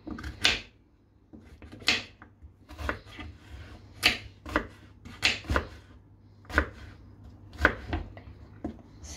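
Kitchen knife chopping raw carrot and turnip on a cutting board: about a dozen sharp, irregular strokes, roughly one or two a second.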